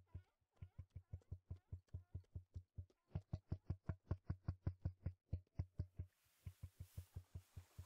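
A low, even thumping pulse, about five beats a second, that grows louder about three seconds in; a steady hiss joins it near the end.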